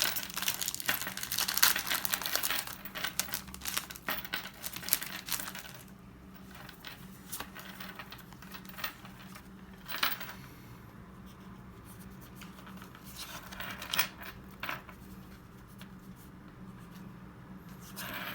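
Foil wrapper of a Japanese Pokémon card booster pack crinkling and tearing open, dense and rapid for the first six seconds or so, then only a few short rustles as the cards are handled.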